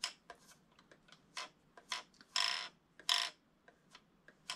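Scattered plastic clicks and taps from a new pistol-grip RC car transmitter being handled and its trigger worked, with two short scraping rustles about halfway through.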